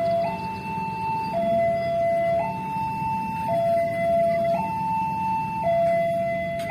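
Level-crossing warning alarm sounding a two-tone electronic hi-lo signal, a higher and a lower tone alternating about once a second, which warns that a train is approaching and the barrier is closing. A low rumble of road traffic runs underneath.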